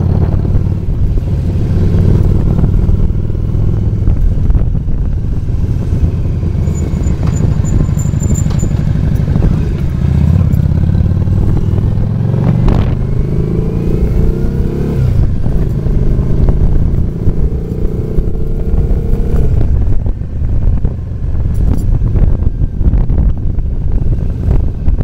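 Motorcycle engine running while riding, heard from the moving bike with wind rushing over the microphone. The engine note rises and falls a few times midway as the bike speeds up and shifts.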